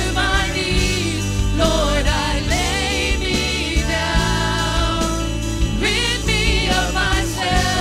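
Amplified worship singing: several voices singing together with vibrato on held notes, over steady instrumental accompaniment.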